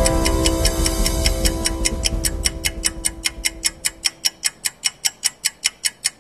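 Fast, steady ticking of a clock sound effect, about four to five ticks a second, used to mark time passing. Held music chords sound under the ticks at first and fade away after a few seconds, leaving only the ticking.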